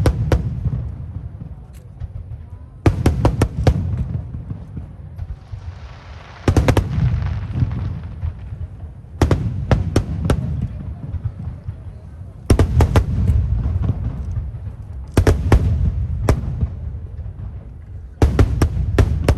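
Aerial fireworks shells bursting overhead in volleys every two to three seconds, each volley a quick cluster of sharp bangs followed by a low rumbling echo. A hissing crackle comes in between volleys about six seconds in.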